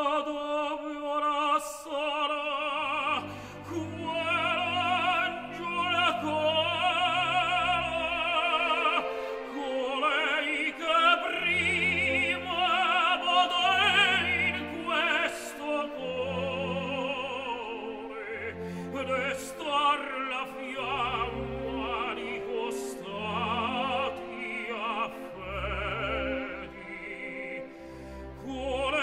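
Operatic tenor singing an Italian opera aria with wide vibrato, accompanied by an orchestra playing repeated low notes underneath.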